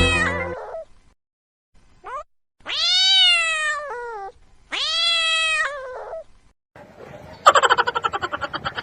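Cat meowing: a short rising call about two seconds in, then two long, high meows that rise and then fall in pitch. Near the end comes a rapid fluttering, pulsed sound.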